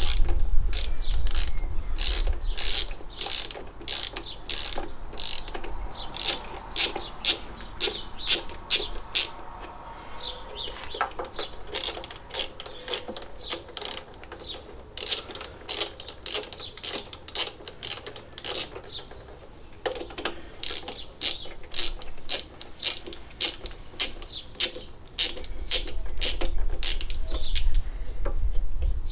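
Hand socket ratchet clicking in quick runs with short pauses as loosened cylinder head bolts are wound out.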